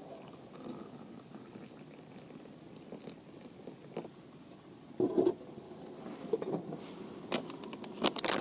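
Water heating in a pot on a spirit stove, a low steady bubbling. There is a knock about five seconds in, and a few sharp clicks near the end.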